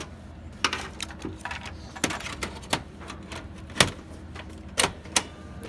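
Irregular clicks and clacks of metal and plastic as an optical drive is handled and pressed into the drive bay of a desktop PC case, with one louder knock a little under four seconds in.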